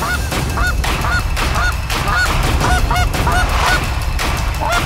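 Goose honks repeated about twice a second, sometimes overlapping, over a steady low rumble.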